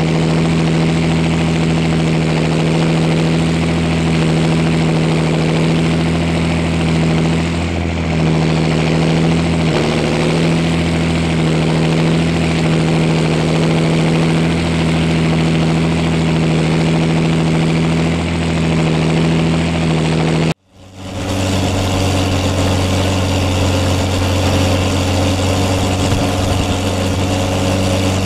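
Straight-piped John Deere tractor diesel engines working steadily under load while moldboard plowing. About twenty seconds in the sound cuts out abruptly for a moment and comes back as a steady, lower-pitched engine note.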